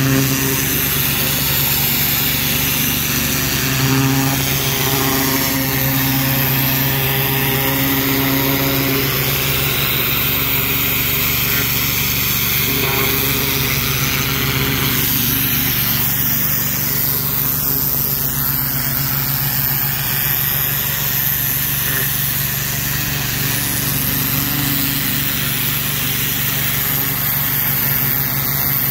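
Engine-driven pressure washer running steadily, with the constant hiss of the high-pressure water jet striking a brick wall.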